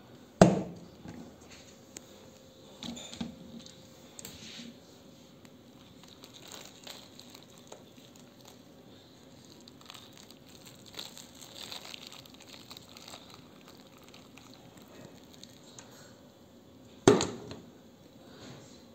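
Hot water poured from a kettle over a whole chicken in a plastic basin to scald it for plucking, with the soaked feathers faintly squished and pressed by hand. Two loud thumps stand out, one just after the start and one near the end.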